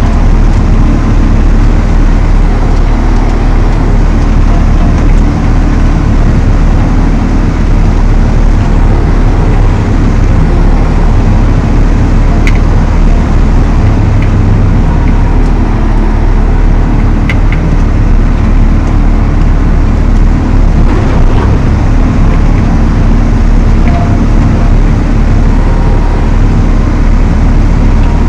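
Valtra T214 tractor's engine running steadily under load while it drives the Elho Tornado chain mower: a constant, loud, heavy drone.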